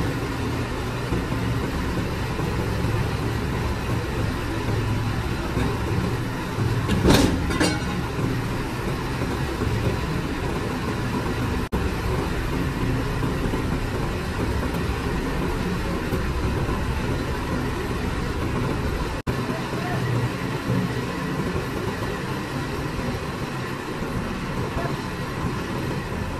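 Diesel engine of a New Holland Clayson 8060 combine harvester running steadily, with one brief louder burst about seven seconds in.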